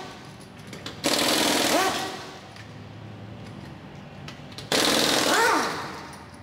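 Impact wrench hammering loose the lug nuts of a car wheel in two bursts, about a second in and again near the end. Each starts suddenly and fades as the tool's whine falls in pitch.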